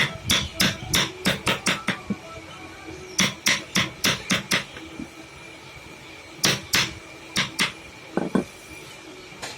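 Hammer blows on wood in quick runs of about three or four strikes a second, three runs with short pauses between, and a last knock or two near the end.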